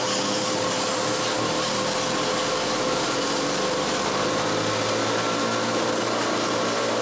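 Wood lathe running at a steady speed with sandpaper held against the spinning cedar tip: a constant motor hum under an even sanding hiss.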